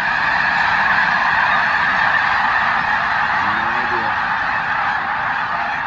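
A huge flock of snow geese calling all at once: a dense, unbroken din of massed honking that eases slightly near the end.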